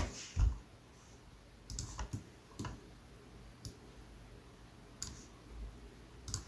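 Sparse clicks of a computer mouse and keyboard: a handful of separate, short, sharp clicks spread a second or so apart.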